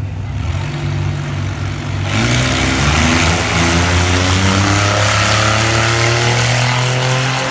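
Drag-racing cars' engines running steadily at the start line, then about two seconds in a sudden jump to full throttle as they launch, the engine pitch climbing as they pull away down the strip.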